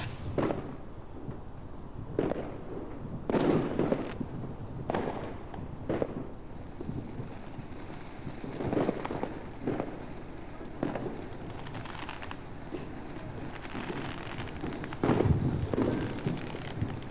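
Fireworks going off: a string of sharp, irregularly spaced bangs and pops, the loudest about three and a half seconds in and again near the end.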